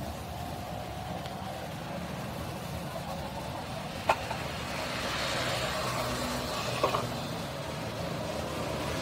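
Street-market background: a motor vehicle engine running steadily, with voices in the background. A sharp click sounds about four seconds in and a quick double knock near seven seconds.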